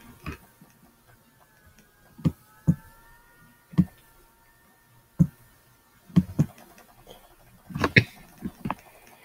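Scattered soft knocks and taps, about ten of them, irregularly spaced. A faint wavering tone hangs underneath in the first half.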